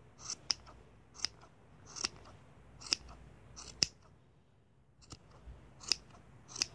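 Scissors snipping through yarn while trimming a pom pom: crisp, short snips about once a second, with a brief pause about four seconds in.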